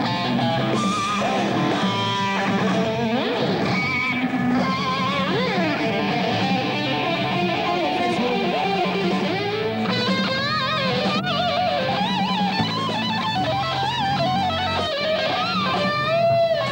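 A rock band playing, with electric guitar to the fore over a steady bass line. From about ten seconds in, a lead line of bent, wavering notes rises above the rest.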